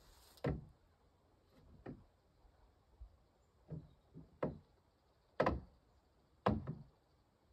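A series of about seven sharp knocks at irregular intervals, the last two loudest.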